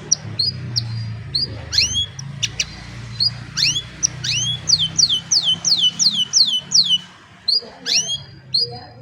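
Canary singing: sharp, falling whistled notes, breaking into a quick run of repeated falling notes, about three a second, in the middle. A low steady hum runs underneath.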